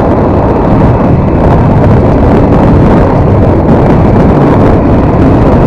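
Motorcycle riding at highway speed: wind rushing over the microphone mixed with the engine's steady running, a loud, even noise throughout.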